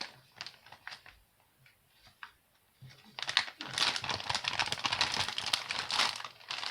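Packaging of a diamond painting tool kit being opened by hand: a few light clicks and ticks, then steady crinkling from about three seconds in.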